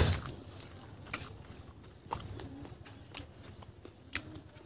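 Close-miked chewing mouth sounds: sharp wet clicks and smacks about once a second, the loudest right at the start.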